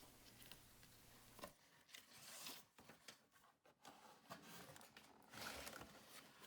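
Faint rustling and tearing of toy packaging as a playset box is opened, in two short stretches with a few soft clicks.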